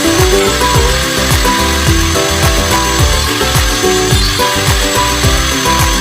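A power saw, a table saw by the video's tags, cutting through wood: a steady hiss with a thin high whine, under background music with a beat and falling bass drops.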